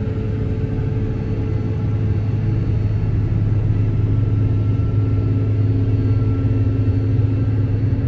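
A vehicle's engine drones steadily with a deep rumble, heard from inside the cab while it travels along the road. A few faint steady whines sit above the drone.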